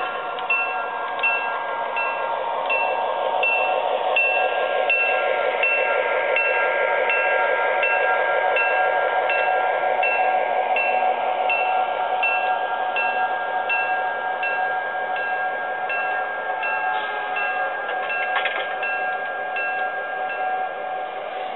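Model train rolling past on the layout with a steady whine, while a bell dings about twice a second.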